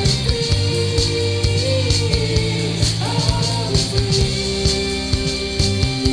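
Rock music with guitars and a steady beat.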